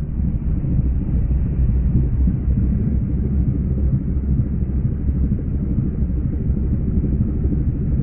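Brabus Rocket 900 (Mercedes-AMG GLE 63-based) V8 engine running, a low, steady sound with no revving, played back slowed down.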